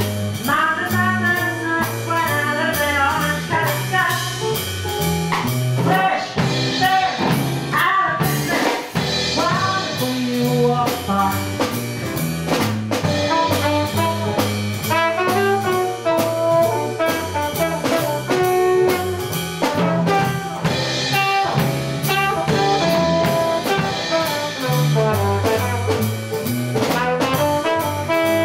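Jazz band playing a swing tune: a woman's vocal line near the start, then a trumpet taking the lead over upright double bass, drum kit and electric guitar.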